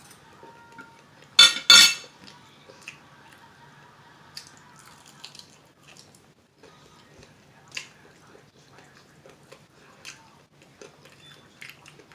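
Cutlery clinking on dishes: two sharp clinks about a second and a half in, then scattered light taps and clicks.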